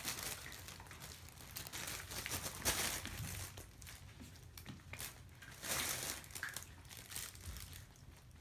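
Fabric pop-up play tunnel rustling and crinkling in irregular bursts as Maltese puppies tug at it and scramble over it, loudest about three and six seconds in.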